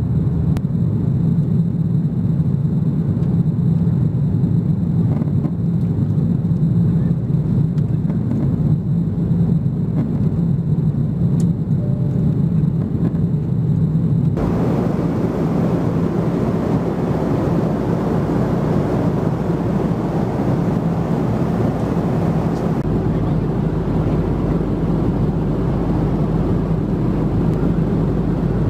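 Cabin noise of an Airbus A330-200 in cruise: a steady low drone of engines and airflow heard from inside the cabin. The rushing hiss gets brighter about halfway through.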